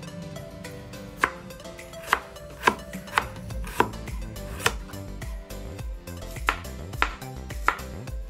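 Kitchen knife slicing shallots on a cutting board: about nine sharp taps of the blade on the board at uneven intervals, starting about a second in, over background music.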